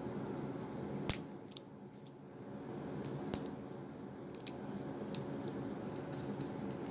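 Hands working at the plastic packaging of a pack of batteries to get them out: scattered sharp clicks and snips, the loudest about a second in and again a little after three seconds, over a low steady hum.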